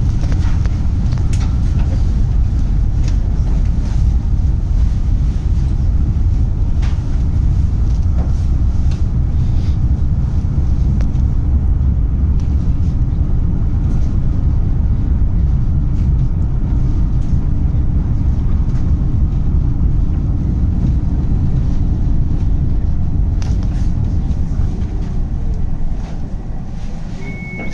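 Tram running on its rails: a steady low rumble with scattered light clicks, easing off a little near the end.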